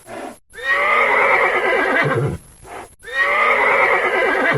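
Horse whinnying twice, each neigh a wavering call about a second and a half long.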